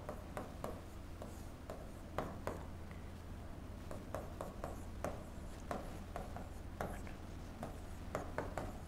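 Pen tip tapping and scratching on the screen of an interactive display board during handwriting: a string of irregular light clicks, over a steady low hum.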